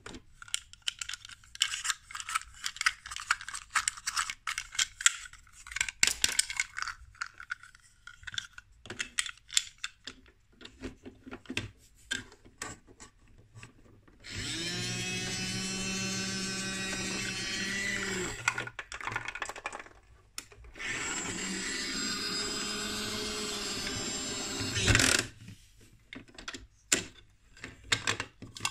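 Plastic clicking and rattling as the bin lifter of a toy garbage truck is worked by hand with a small yellow wheelie bin. Then comes a steady whirring tone from the toy truck, twice, each lasting about four seconds.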